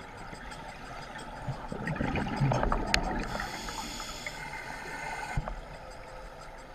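Muffled underwater sound heard through a GoPro housing: a diver's scuba regulator breathing, with a louder gurgle of exhaled bubbles about two seconds in and a click, then a hiss of inhalation for about two seconds.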